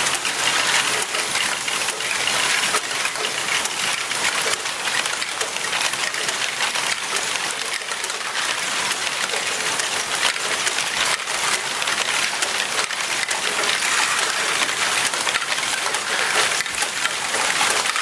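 Many small plastic balls clattering continuously through a large Lego ball-transport machine, rolling, dropping and knocking on Lego parts in a dense, steady patter like rain.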